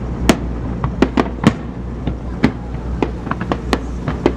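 Fireworks going off: a rapid, irregular run of sharp bangs, more than a dozen, over a steady low hum.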